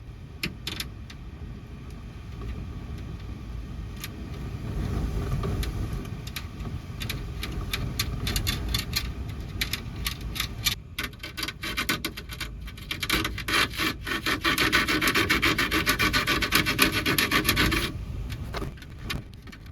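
Scraping and rasping as a small hole is worked into a van's roof fan vent, scattered strokes at first, then a loud run of rapid rasping strokes near the end, over a low rumble of storm wind.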